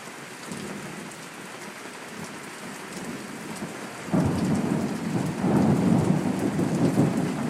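Steady rain falling, then about four seconds in a loud roll of thunder breaks in and keeps rumbling.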